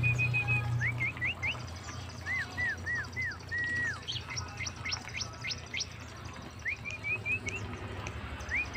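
A small bird chirping: repeated clear whistled notes, some sliding up, some curving down, and quick upward-flicking calls in the second half. A low steady hum runs underneath, louder in the first second.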